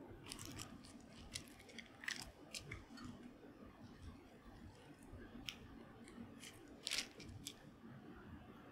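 Quiet handling sounds as a metal cookie cutter is pressed through a slice of processed cheese on its plastic film on a wooden board: scattered light clicks and crinkles, the loudest about seven seconds in.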